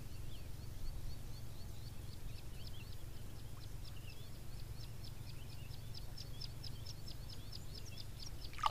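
A bird calling a long series of short, high chirps that come faster and louder as it goes on, reaching about four a second, over a steady low rumble.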